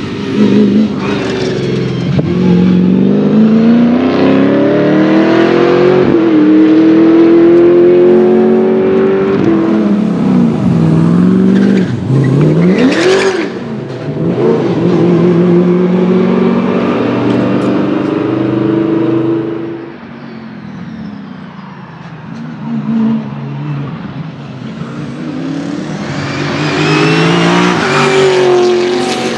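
Chevrolet Camaro SS race car's V8 engine at high revs, its pitch climbing through the gears, falling on downshifts and sweeping past on pass-bys. It drops quieter for a few seconds past the middle, then builds up again near the end.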